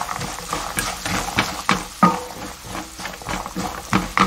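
Silicone spatula stirring walnuts through a sticky soy-and-syrup glaze in a non-stick frying pan, in repeated strokes about three a second.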